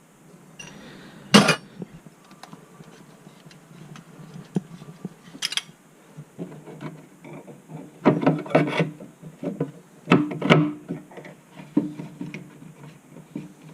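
Metal clinks, taps and rattles of copper pipe fittings and tools being handled while pipe ends are prepared for soldering. A sharp knock about a second in, another around five seconds, then two bursts of rattling clatter in the second half.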